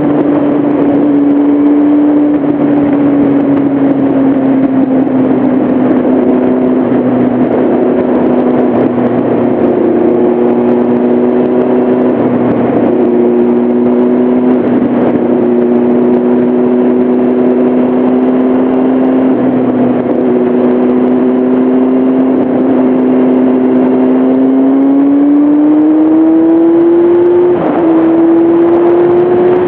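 Motorcycle engine running steadily while riding, with wind noise. About twenty-five seconds in, the engine note rises as it accelerates, with a brief break in the note shortly after.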